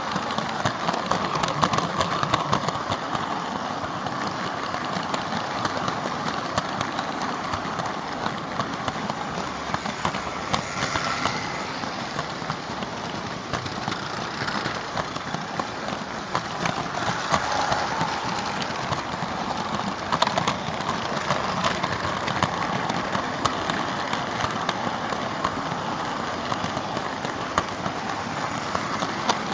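Märklin H0 model train rolling on pressed-steel M-track, heard from a car within the train: a steady metallic rattle of the wheels with rapid clicks over rail joints and points.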